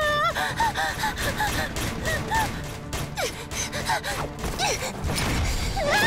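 A young girl's voice gasping and giving short effort cries as she scrambles along, over background music, with several knocks and scrapes.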